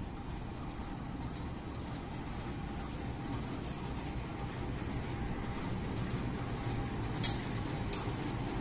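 CC201 diesel-electric locomotive's engine running as the locomotive rolls slowly past, a steady low rumble growing a little louder. Two short hisses come near the end.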